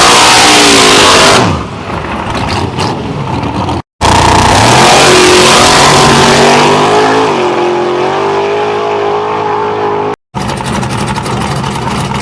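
No-prep drag cars at full throttle, engine pitch climbing as they launch and pull away down the strip and then fading. The sound breaks off abruptly twice, and a steadier, quieter engine sound follows near the end.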